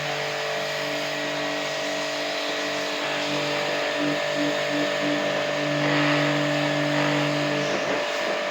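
Electric jet pump pressure washer running and spraying water: a steady motor hum under a broad hiss of spray.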